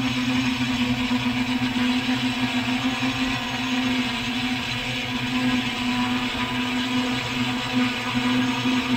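Multirotor drone's motors and propellers buzzing steadily in flight: one constant hum with a hiss above it.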